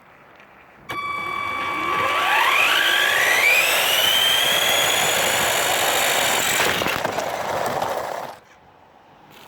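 Electric motor of an S912 RC monster truck whining as it is driven: a steady high whine starts suddenly, then the pitch rises smoothly as the truck speeds up and holds high before the sound cuts off near the end.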